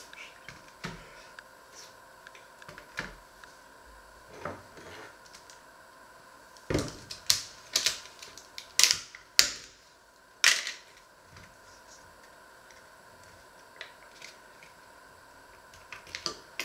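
A knife scraping and cutting crisp toast, with clicks and knocks of the knife and bread on a wooden cutting board; a run of loud, sharp rasping scrapes comes in the middle, over a faint steady hum.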